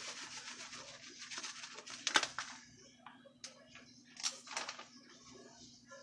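Shredded cheese being sprinkled by hand onto hot dip in a glass casserole dish: a soft rustle that fades after about two and a half seconds. A sharp click comes about two seconds in, then a few fainter clicks, over a faint steady hum.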